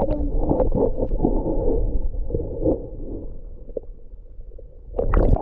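Muffled rushing and gurgling of creek water heard through a camera held underwater, a heavy low rumble with scattered knocks. Near the end a sharper, brighter splash-like burst.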